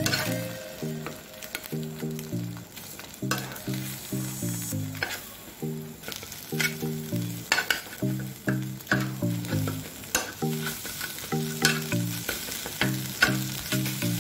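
Eggs sizzling in a non-stick frying pan as a metal spatula repeatedly scrapes and taps against the pan, breaking them up into scrambled egg.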